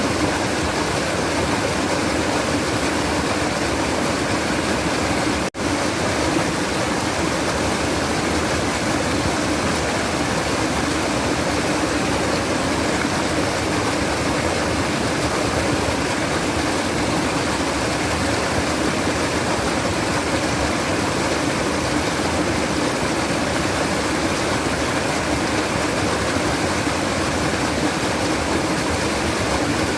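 Running water babbling and trickling in a steady, unbroken rush, cut off for an instant about five and a half seconds in.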